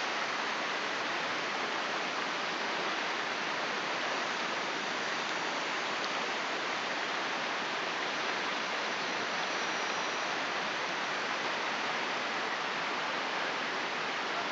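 Steady, even rush of moving water, a constant hiss without swells or breaks.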